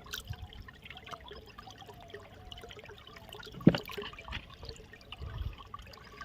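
Pond water trickling and lapping, with small splashes and ticks, and one sharp knock about three and a half seconds in.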